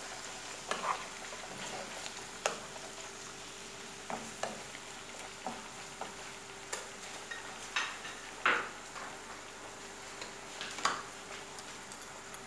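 Diced turkey, onion and garlic sizzling softly in a nonstick frying pan, with a wooden spoon scraping and knocking against the pan at irregular moments as the meat is stirred.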